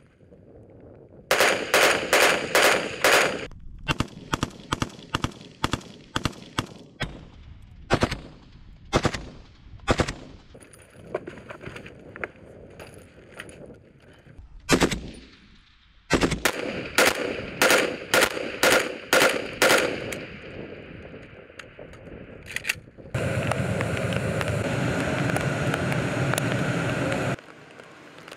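Assault rifles firing on a range: rapid strings of shots, about five a second, then a spell of scattered single shots, then another run of rapid shots. Near the end a steady loud noise runs for about four seconds and cuts off suddenly.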